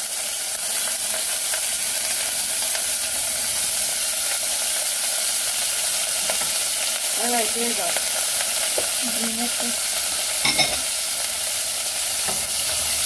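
Beef frying in hot canola oil in a pot: a steady sizzle. A single sharp knock sounds about ten and a half seconds in.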